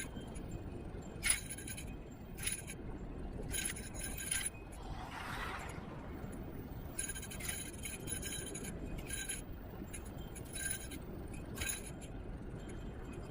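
Electric kick scooter riding along: a steady low rumble of road and wind noise, broken by irregular metallic clinks and rattles as it goes over bumps, with a brief hiss about five seconds in.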